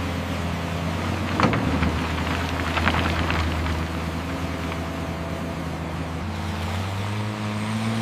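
Steady motor hum of radio-controlled construction machines working in mud, with a short clatter about a second and a half in and a run of clicks around three seconds in. The hum steps up in pitch near the end.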